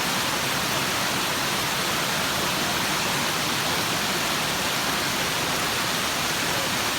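Waterfall's steady rush of falling water, an even hiss with no change in level.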